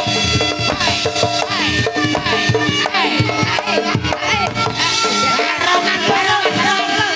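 Javanese gamelan ensemble playing lively music, with bronze metallophones and gongs ringing under kendang hand-drum strokes and a woman's voice singing a winding melody over them.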